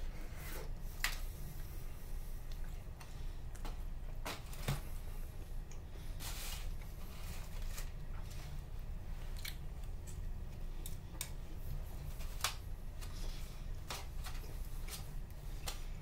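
Scattered short clicks and crackles from a thin plastic clamshell tray and a crisp cream-puff shell being handled and pulled apart. Under them runs the ferry's steady low rumble.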